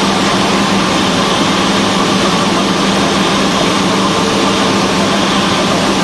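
Cessna 172 light aircraft in flight: its piston engine and propeller make a loud, steady drone with a strong low hum that does not change.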